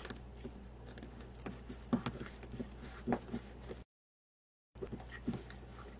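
Soft rustles and light taps of craft materials being handled, a few small clicks at a time, with the sound cutting out to silence for about a second near the middle.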